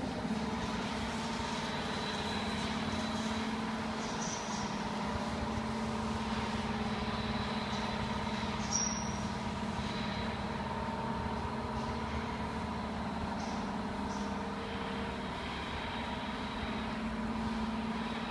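Machinery running in a CNC router workshop: a steady hum holding several constant tones throughout.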